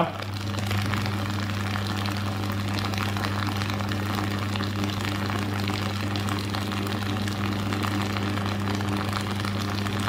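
Bare-electrode immersion water heater humming steadily at mains frequency while the water around its electrodes boils with a crackling, fizzing sound. The sound comes from mains current passing straight through the water between the electrodes.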